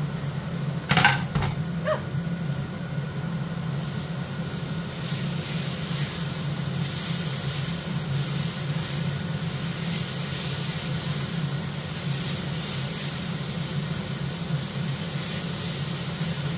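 Bacon sizzling faintly in hot olive oil with frying onion and garlic in a pot, over a steady low hum. A short clatter about a second in as the bacon is tipped in from a wooden chopping board.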